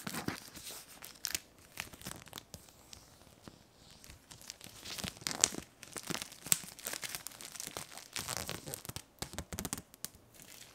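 Clear plastic film being peeled off a packaging box, crinkling and tearing in irregular crackles, with a few sharper, louder crackles around the middle.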